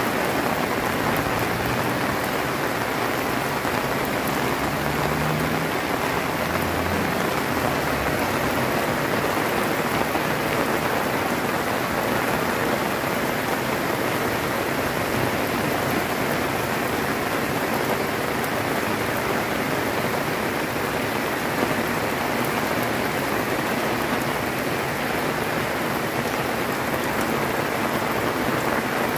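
Heavy rain falling steadily in a dense, even hiss that holds the same level throughout.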